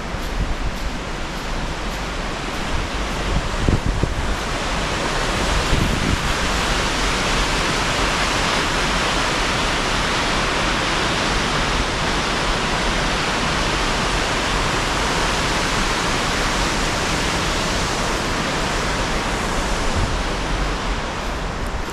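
Water pouring over a river dam: a steady rush of falling water that grows louder about five seconds in and then holds.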